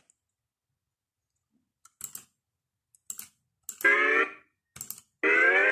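Soundtrack of a cartoon logo-parody video playing through computer speakers: a few sharp clicks, a short pitched tone about four seconds in, and a louder pitched tone near the end that carries on into music.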